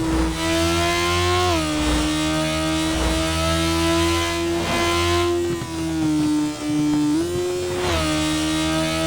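Motorcycle engine running at high, near-constant revs, its pitch easing down slightly about a second and a half in and climbing back up near the end.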